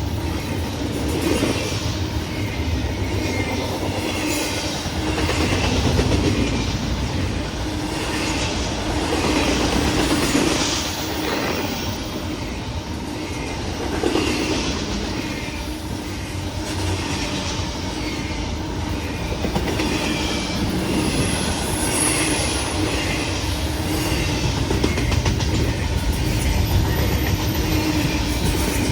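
Freight cars of a CN intermodal train rolling steadily past, wheels clicking over the rail joints, with occasional high-pitched wheel squeal.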